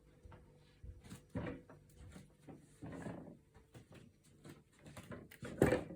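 Four-month-old kitten meowing excitedly for breakfast: three short calls, the loudest near the end, with small clicks and knocks between them.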